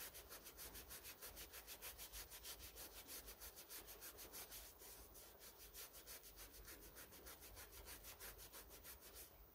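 Faint, rapid back-and-forth scrubbing of a green abrasive scouring pad on a lathe's rusty cast-iron bed, rubbing off rust left after a rust-dissolving gel. The strokes grow fainter in the second half and stop near the end.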